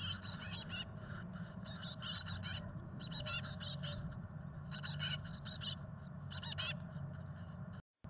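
Chickadee nestlings giving rapid, high-pitched begging chips in short bursts every second or so, over a steady low hum.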